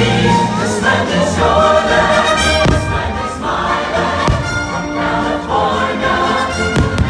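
Patriotic fireworks-show soundtrack of choir singing with orchestra, with three firework bursts: one a little under halfway in, one past halfway and one near the end.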